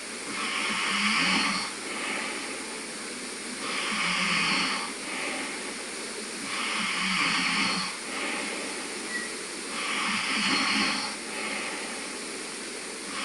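A sleeping man snoring in a steady rhythm: about four snoring breaths, roughly three seconds apart, each a louder snore followed by a shorter, softer breath.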